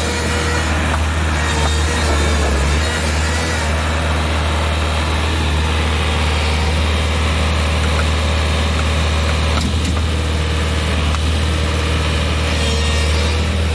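Bobcat Toolcat 5600's diesel engine running at a steady speed, a loud, even low hum.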